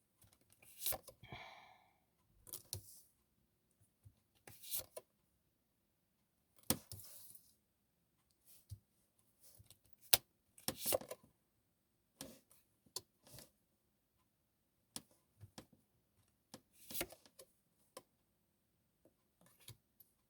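Tarot cards being handled on a table: faint, scattered taps, clicks and short rustles, with silent gaps between them.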